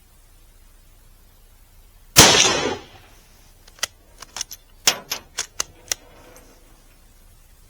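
A single shot from a Mauser K98 bolt-action rifle in 7.92×57mm Mauser, its report dying away over most of a second. About a second and a half later comes a quick run of sharp metallic clicks as the bolt is worked to eject the spent case and chamber the next round.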